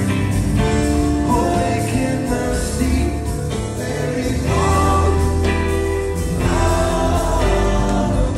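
Live rock band playing, with electric guitar, drums, bass and singing, heard from within the concert crowd.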